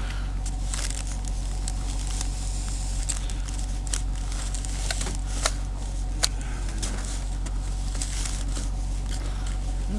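Scattered small clicks and crackles from gloved hands handling small fishing tackle, over a steady low hum. Two sharper clicks come a little past the middle.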